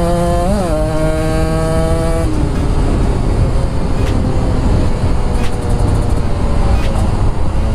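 Kawasaki Ninja two-stroke single-cylinder engine revving high under acceleration, its pitch climbing, until the throttle is shut about two seconds in. After that a loud rush of wind noise covers the faintly running engine, with a few sharp clicks.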